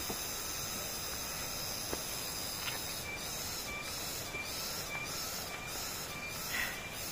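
Steady high drone of forest insects. From about three seconds in, a call pulses in an even rhythm, roughly every 0.6 seconds, each pulse with a short high note. A few faint knocks sound over it.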